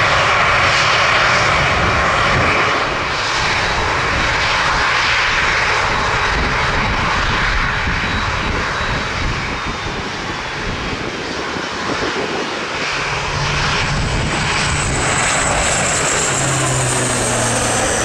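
ATR turboprop airliner's engines running at takeoff power: a loud, steady engine noise, with a high whine that rises near the end.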